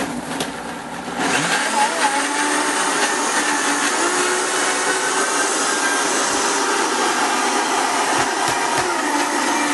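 Vitamix blender crushing ice cubes with peeled oranges and sugar into sorbet. The motor starts at a lower level, then gets much louder about a second in and runs steadily.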